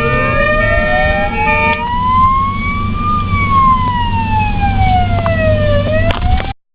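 Ambulance siren wailing in one slow rise and fall, climbing for about three seconds, sliding back down and starting to climb again, over steady road rumble. A cluster of steady tones sounds alongside it for the first two seconds. Everything cuts off suddenly near the end.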